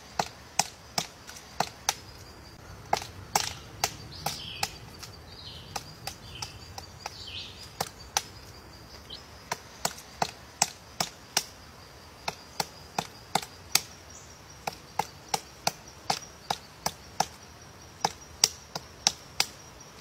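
Pileated woodpecker chiselling into a tree trunk to dig out a cavity: sharp, separate chopping blows on wood, about one to three a second with short pauses, not a drumming roll. A faint steady high tone runs in the background.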